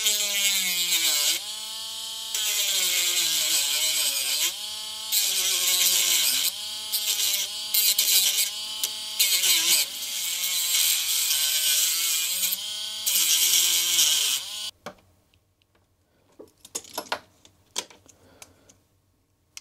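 Small handheld rotary tool with a thin cut-off disc grinding into the plastic casing of a real-time clock chip. The motor's whine dips and recovers again and again as the disc bites. It stops about fifteen seconds in, and faint scraping clicks of a hobby blade on the chip follow.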